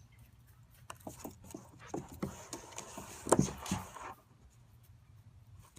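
A dog moving about: a run of irregular taps and knocks over about three seconds, loudest about three and a half seconds in, then it goes quiet.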